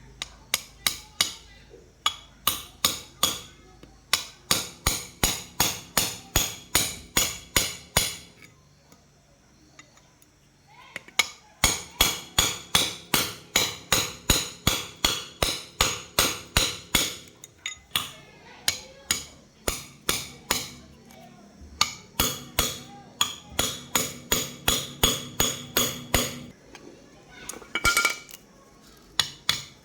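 Hammer blows on metal, about three a second, in runs of several seconds with short pauses between them, each strike ringing briefly.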